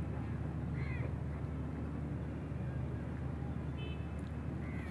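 Steady low outdoor background rumble, with a few faint high chirps about a second in and again near the end.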